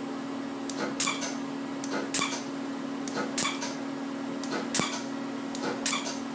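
Pulsed dye laser firing on the skin: five sharp snapping pops, evenly spaced about once every second and a bit, over a steady low hum.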